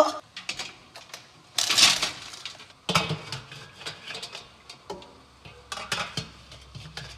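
Stainless steel tongs, a steamer pot and its lid clanking and scraping in a string of separate knocks and clatters as a large rock lobster is lifted into the steamer.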